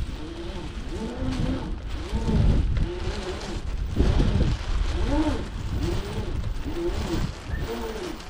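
Wind and water noise aboard a sailing yacht, with a string of short squeaks that rise and fall in pitch, about one a second.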